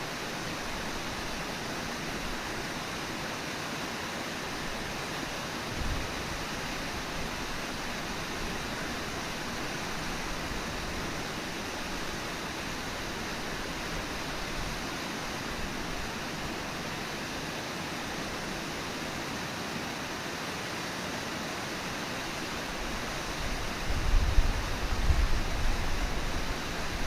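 Brooks Falls waterfall rushing steadily. Near the end, a louder low rumble joins in for a few seconds.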